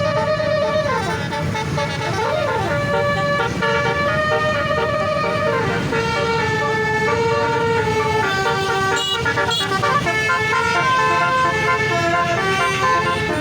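Bus basuri (telolet) multi-tone horn playing a continuous tune of held notes that change pitch every second or so, a few of them sliding, over a low rumble.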